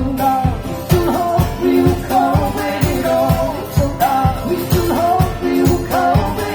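Live band music: a steady drum beat of about two hits a second under a bending melodic lead line, in an instrumental passage of the song.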